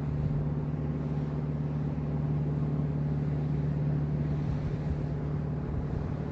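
An engine's steady low drone, easing off a little near the end.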